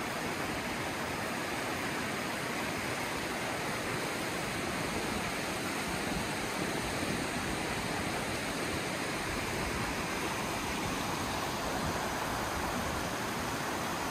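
Mountain creek rushing over rocks and small rapids: a steady, even rush of water with no breaks.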